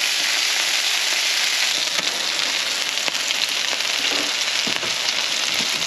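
Moose burgers and moose sausages frying, a steady sizzle with scattered little crackles.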